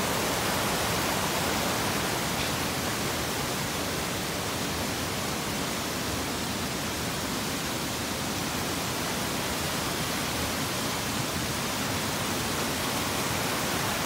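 A mountain stream cascading over rocks beside the trail, a steady, even rush of water.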